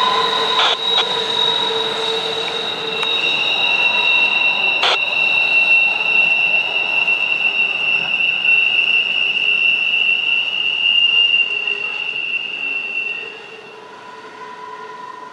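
Freight car wheels squealing as the rear of a freight train rolls past and away: several steady, high-pitched squeal tones, with one sharp clank about five seconds in. The squeal drops away suddenly near the end.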